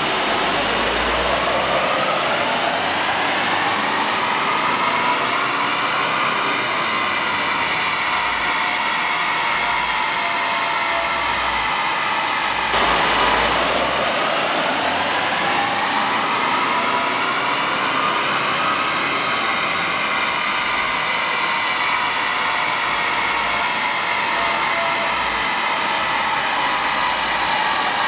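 Jeep Cherokee 2.8 CRD four-cylinder turbo-diesel under full load on a rolling-road dyno, its whine rising in pitch as the revs climb, then holding high. About halfway through it breaks off suddenly, and a second power run climbs the same way.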